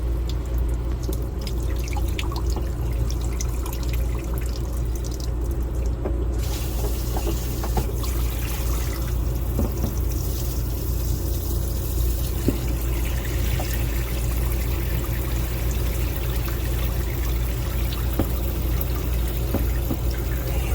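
Water spraying steadily from a truck camper's shower head into the shower pan, which is filling up and not draining. The spray turns hissier about six seconds in.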